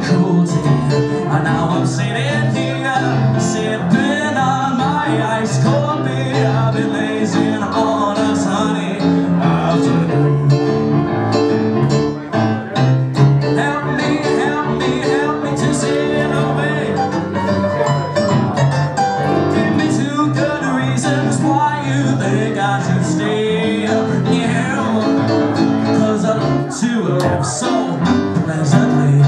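A man singing a song to his own Casio digital piano accompaniment, played live.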